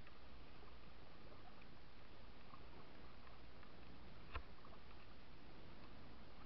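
A kayak being paddled on a river: steady water noise with faint scattered ticks, and one sharp knock about four seconds in.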